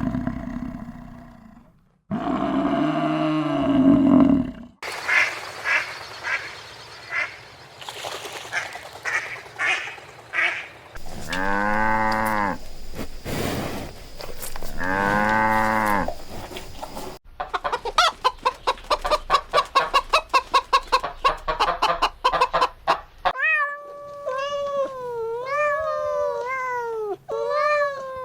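A run of different farm animal calls, one after another with abrupt changes: a deep call at first, then repeated poultry calls, two long drawn-out calls, a fast series of short calls, and meowing near the end.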